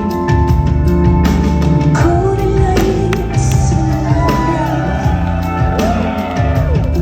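Live rock band playing: drum kit, bass and keyboards keep up a dense, steady groove. From about two seconds in, a voice sings long, wavering, gliding notes over it.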